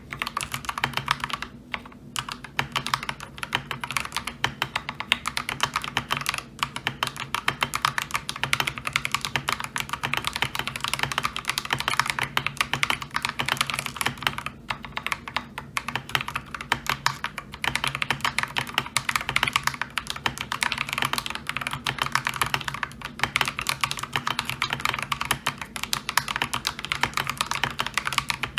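Continuous typing on a mechanical keyboard with lubed Akko Lavender Purple tactile switches, a steady stream of keystrokes broken by a few brief pauses.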